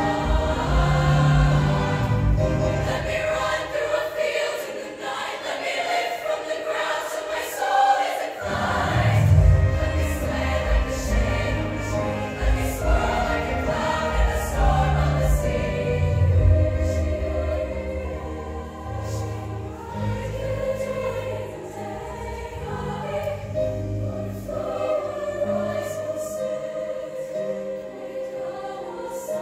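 Show choir singing with a live backing band. The bass and drums drop out a few seconds in, leaving mostly the voices, and come back in at full strength about eight seconds in.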